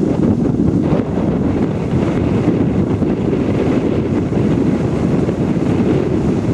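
Strong wind buffeting the microphone over the rush of water along the hull of a pilot cutter under sail, a steady, loud, low noise with no let-up.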